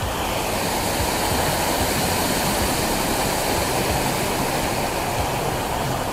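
A waterfall's steady rush of falling water, a continuous even roar of noise.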